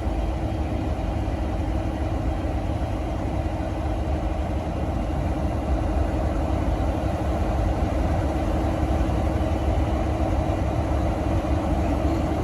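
V/Line N class diesel-electric locomotive N473, with its EMD 12-cylinder two-stroke diesel, idling: a steady low rumble with a constant hum over it.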